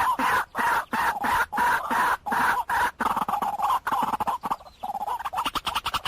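White-breasted waterhen calling: a harsh call repeated about two to three times a second, with a brief pause about two-thirds through before the calling picks up again, faster.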